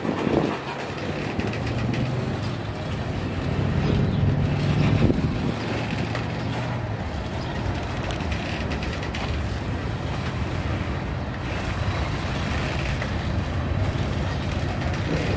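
Diesel locomotive engine running with a steady low drone over a wide rumble, swelling slightly about four to five seconds in.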